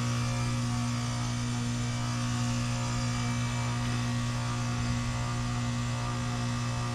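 A 2018 Carrier Sentry heat pump running in a defrost cycle: a steady low hum from the outdoor unit's compressor, with an even hiss over it.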